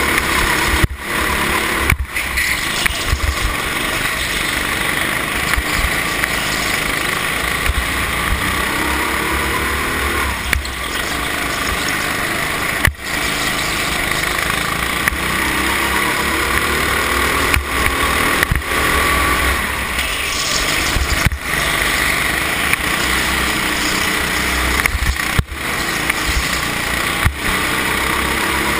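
Go-kart engine running hard, heard from on board the kart, its pitch rising and falling over and over with the throttle. The sound dips out briefly a handful of times.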